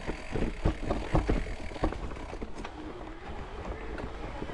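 Mountain bike being ridden over a rough dirt trail: tyres rumbling with a quick run of knocks and rattles over the first two seconds, then smoother rolling, with wind rumbling on the microphone.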